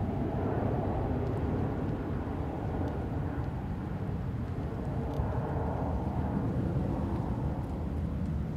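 Steady low outdoor background rumble with a faint click about five seconds in.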